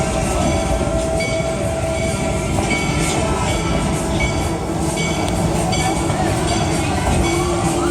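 Amusement-park passenger train running along its track, heard from aboard: a steady rumble of wheels and cars, with high tones that come and go over it.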